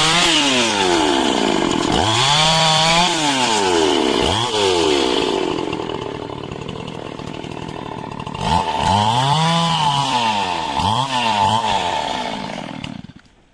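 Stihl chainsaw cutting coconut palm wood, its engine revving up and falling back again and again, then stopping abruptly near the end.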